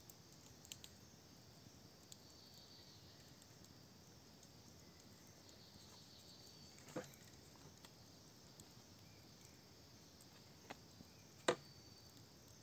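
Quiet forest ambience at dusk with faint high insect chirping, broken by a few short sharp clicks and knocks as bamboo and food are handled by the fire, the loudest near the end.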